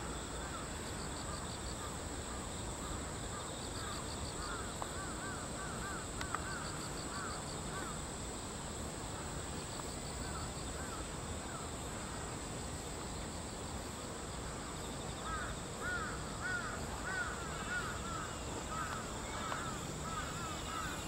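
Crows cawing in quick series, louder and more frequent in the second half, over a steady high insect drone.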